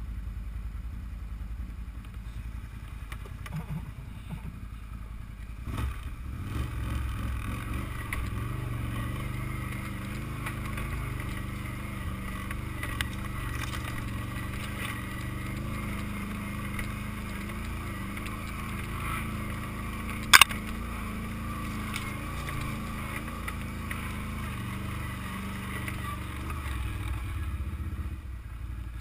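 ATV engine idling, then pulling away about six seconds in and running steadily as the quad rides over a rocky trail. One sharp knock about two-thirds of the way through is the loudest moment.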